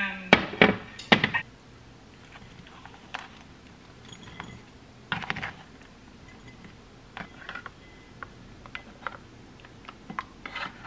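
Metal fork clacking and scraping against a black plastic microwave-meal tray and a ceramic bowl as rice and curry are scraped out: three loud clacks in the first second and a half, then scattered lighter taps and scrapes.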